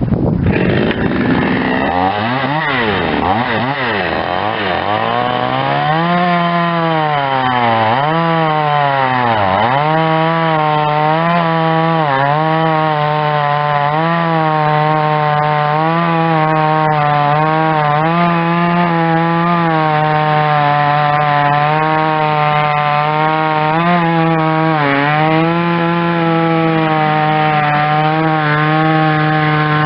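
A 50cc Chinese two-stroke chainsaw cutting wood at full throttle. Its engine pitch swings up and down for the first several seconds, then runs high and steady with brief dips every second or two as it comes under load in the cut.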